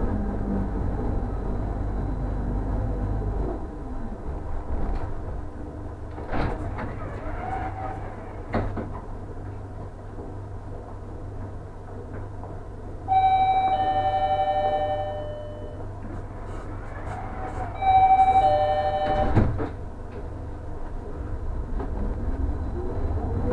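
Bombardier NGT6 low-floor tram slowing to a stop with a falling motor whine, then standing with a low hum. A two-tone door chime, higher note then lower, sounds twice, and a thump follows the second. Near the end the traction motors whine up again as it pulls away.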